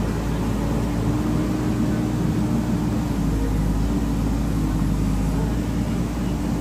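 Backhoe loader's diesel engine running steadily at work.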